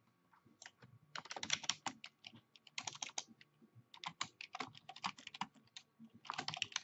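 Typing on a computer keyboard: four short runs of rapid key clicks with brief pauses between them.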